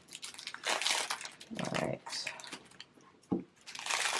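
Cellophane wrap crinkling and crackling in short bursts as a new deck of tarot cards is unwrapped and handled. A short low vocal sound comes about halfway through, and a single soft knock near the end as the deck is set down on the table.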